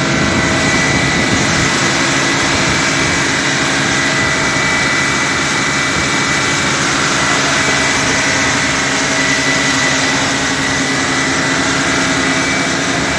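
Loud, steady engine noise with a constant high-pitched whine over a dense rushing noise, from engines running on an airport apron.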